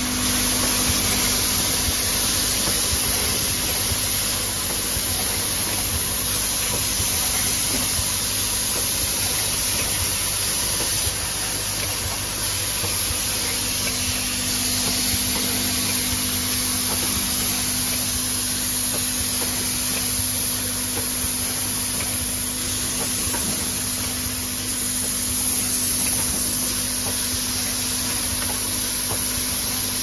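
Automatic flat-bottle filling, plugging and capping machine running: a steady mechanical hum under a constant hiss from the turntable, feeders and air lines.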